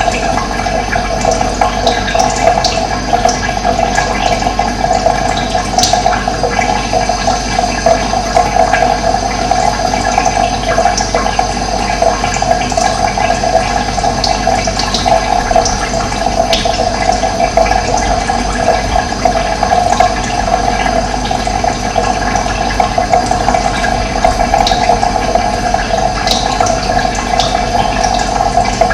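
Running water, a steady loud rushing flow, with a few brief high chirps of birds here and there.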